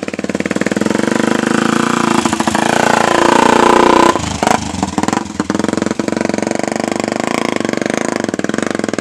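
Small motorcycle engine running steadily, its pitch shifting and loudest about two to four seconds in.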